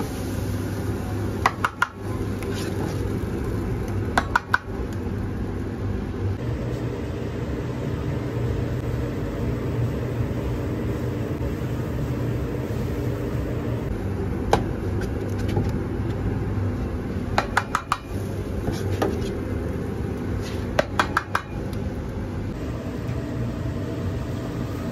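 Steady hum of a restaurant kitchen around a large dosa griddle, with short clusters of sharp metal clinks from a ladle knocking against the steel batter tray and griddle, about six times.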